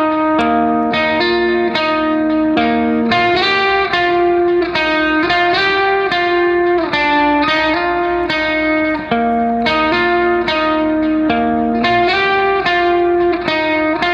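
Background music: a guitar picking a melody of separate notes, several a second, each ringing and dying away.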